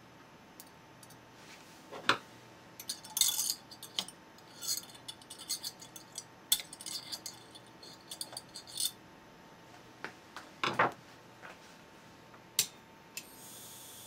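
Irregular metallic clicks and clinks of a screwdriver working at a xenon lamp ignitor's circuit board and its wire spark gap, some with a sharp, bright crackle. A faint steady hiss comes on near the end.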